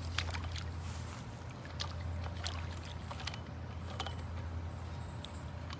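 Plastic pool skimmer net sloshing and scraping through a small muddy puddle, with scattered short splashes and knocks. A low steady hum runs underneath.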